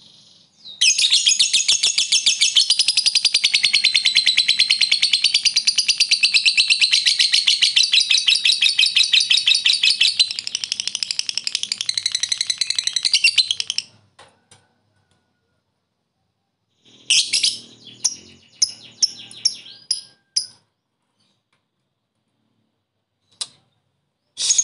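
Lovebird giving a long ngekek: a very fast, unbroken chattering trill that runs about thirteen seconds. It stops, then come a handful of short chirps, a pause, and the trill starts again at the very end.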